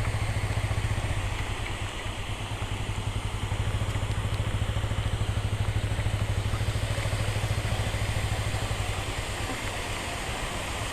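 Motorcycle engine idling steadily, with a fast, even pulse, over a steady hiss.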